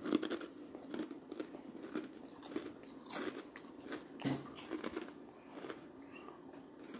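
A person chewing crunchy baked cheese crisps close to the microphone. It is a run of crisp crunches, dense at first and then about two a second.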